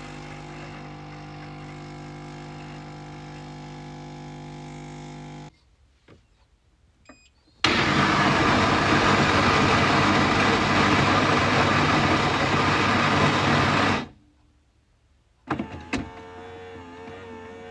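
Coffee machine at work: a steady electric hum for about five seconds, which stops. After a short pause with a few clicks, a loud rushing noise runs for about six seconds and cuts off suddenly. Then come a couple of clicks and a quieter hum with a wavering pitch.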